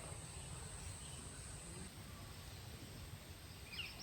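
Quiet outdoor pond-side ambience with a low rumble and a steady high-pitched tone that stops a little before halfway, then a single short bird chirp near the end.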